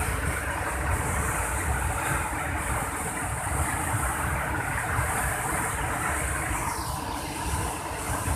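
Flash-flood river torrent rushing and churning over a weir: a loud, steady rush of water with a deep rumble, a little duller about seven seconds in.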